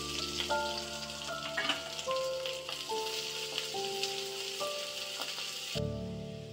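Oil sizzling in an aluminium kadhai as chopped green ingredients are tipped in and stirred with a wooden spoon, under a gentle background melody; the sizzling cuts off suddenly shortly before the end.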